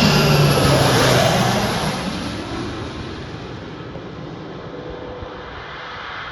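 Fixed-wing aircraft engine passing close, loudest at first and fading away over the next two seconds into a steady lower rumble.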